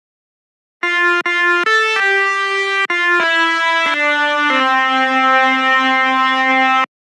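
Telolet basuri bus horn playing a short tune, starting about a second in: about seven buzzy notes, mostly stepping down in pitch, ending on a long held low note that cuts off sharply.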